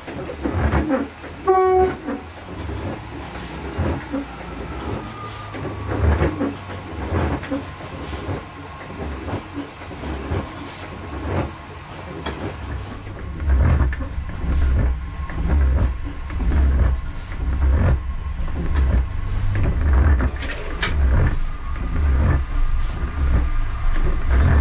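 Class 144 Pacer diesel railcar heard from its cab as it pulls away, with a short high tone about a second and a half in. A faint steady whine runs under clicks and knocks from the running gear. From about halfway through, the engine is louder under power, with a pulsing low rumble.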